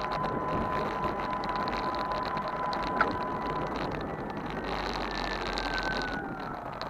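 Electric mobility scooter on the move: a steady thin motor whine over rough tyre and ground noise, with a higher whine sliding down in pitch near the end.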